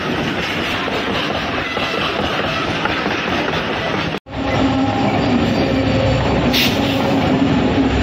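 Freight train wagons rolling slowly past at close range, wheels rumbling and clattering over the rails. A little past halfway the sound cuts out for an instant, and after the break a steady wheel whine runs under the clatter.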